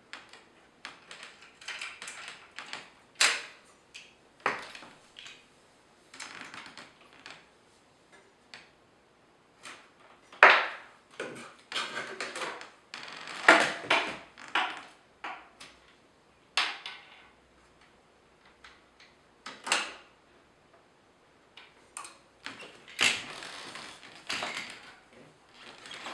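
Irregular knocks, clicks and short scrapes of objects being picked up, moved and set down on a desk, with quiet gaps between them.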